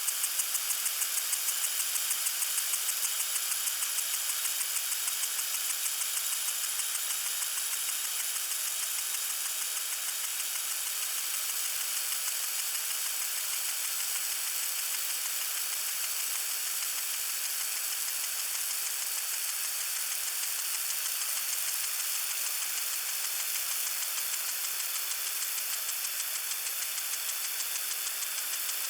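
Lawn sprinkler spraying water: a steady, high hiss with a fast, even pulsing of about two to three beats a second.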